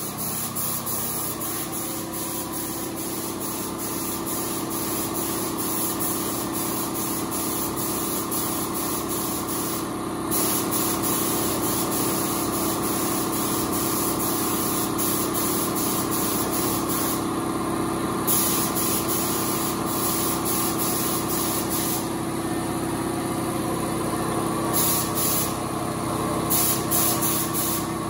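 Compressed-air paint spray gun hissing as it sprays paint, with a few short breaks where the trigger is let off, over a steady machine hum.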